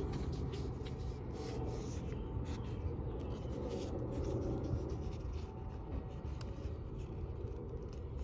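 Soft rubbing and rustling of a canvas watch strap being worked around a suede watch-case cushion under the fingers, with a few faint clicks.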